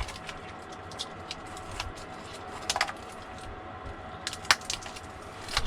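Sporadic light clicks and rattles of small parts being handled, a handful of short sharp ticks spread irregularly across a few seconds.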